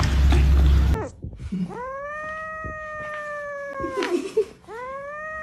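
A loud rushing noise cuts off about a second in. Then a kitten gives two long, drawn-out meows while gnawing on a corn cob, each rising quickly and then sliding slowly down in pitch.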